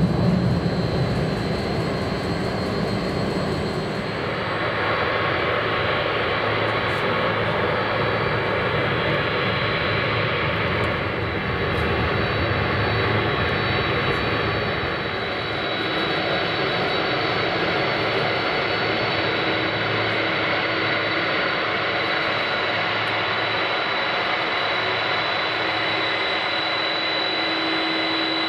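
Boeing 747-400 freighter's four jet engines running at taxi power: a steady rumble with a high, constant whine.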